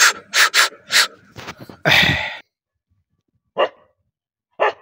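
Dog barking: a quick run of sharp barks, one longer bark about two seconds in, then two single barks after a pause.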